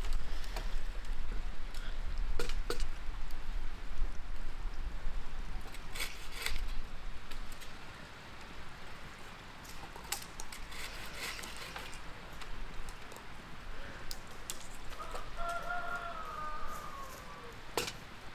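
Wind rumbling on the microphone, easing off after a few seconds, with scattered short knocks and scraping sounds. Near the end a rooster crows in the distance.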